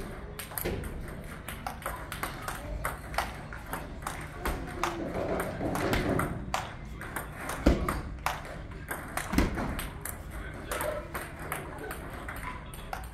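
Celluloid-type table tennis balls clicking off paddles and the table top in a fast rally: a quick, irregular series of sharp ticks. Two heavier thuds come just past the middle.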